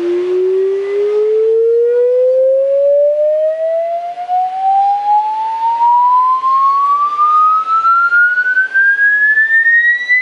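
Sine-wave test tone sweeping slowly and evenly upward in pitch through a loudspeaker, from a low-mid hum toward a high whistle, with faint overtones. It is a frequency sweep used to check a speaker's and amplifier's response across the audio range.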